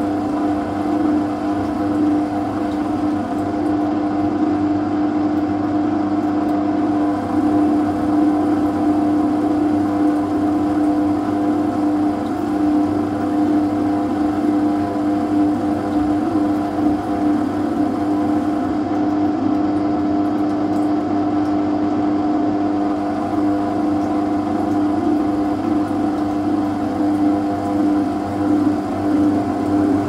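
Asko 12605 front-loading washing machine on its long spin, running with a steady, unchanging whine.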